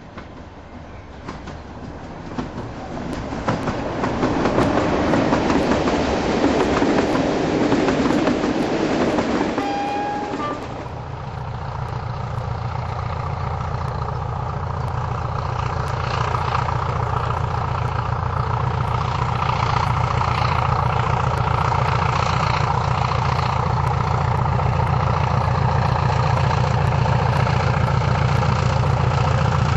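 A diesel-hauled train approaching, its noise growing louder over the first ten seconds, with a short high tone near ten seconds. The sound then changes abruptly to the steady drone of a Class 20 diesel locomotive's English Electric engine as it hauls coaches past.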